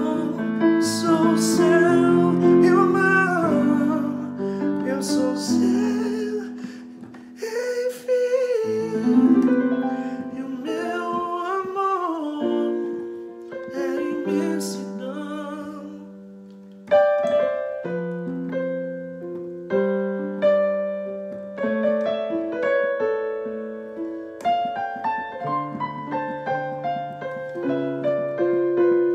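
A man singing with piano accompaniment. About halfway through his voice stops and the piano plays on alone, held chords with a melody on top.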